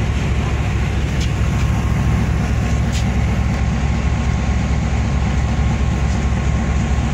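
Steady low rumble of a railway carriage heard from inside the saloon car, with a faint steady hum and a few light clicks.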